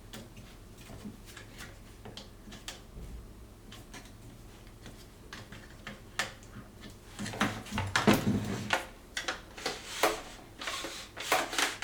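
Small clicks and taps of a Festool HKC 55 track saw's adjustment cams being tightened on its FSK guide rail, then a busier, louder run of knocks and scraping in the last few seconds as the saw is worked against the rail.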